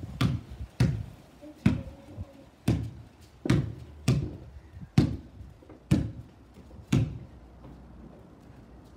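A basketball being dribbled on hard ground, about one bounce a second, nine bounces, which stop near the end.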